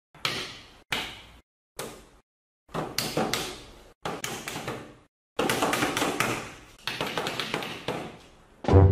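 Repeated sharp slaps and taps on a wooden tabletop, at first singly and in small clusters, then in a fast flurry a little past halfway through.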